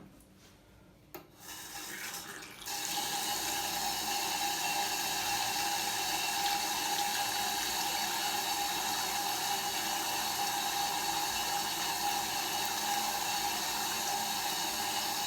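Sink faucet with an ordinary, non-silent ceramic cartridge: a click about a second in, then water rushing from the tap, steady and loud (about 70-odd decibels), with a steady whine over the rush. The noise is hot and cold water colliding as they mix inside the faucet, which makes the faucet vibrate and the washbasin resonate.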